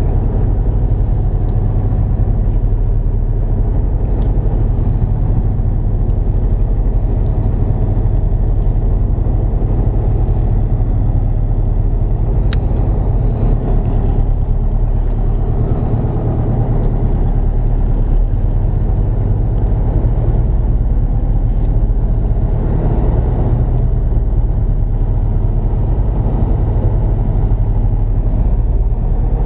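Fishing boat's engine running steadily: a loud, even low drone.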